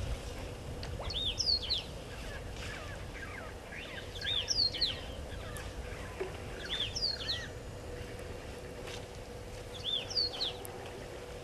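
A bird calling a short phrase of high, quickly rising-and-falling whistled notes, repeated about every three seconds.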